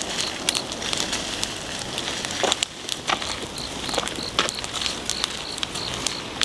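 Wood bonfire crackling, with irregular sharp pops.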